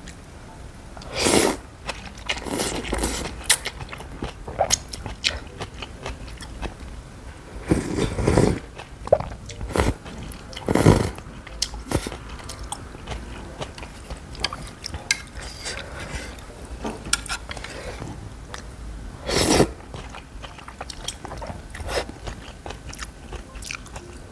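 Close-miked eating of Vietnamese rice noodle soup: about five loud, short slurps of noodles and broth, with soft chewing and wet mouth clicks between them.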